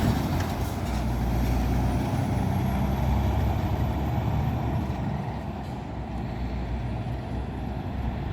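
Diesel truck engine running through a straight-through exhaust: a deep, steady rumble, with faint high whistles that rise and fall.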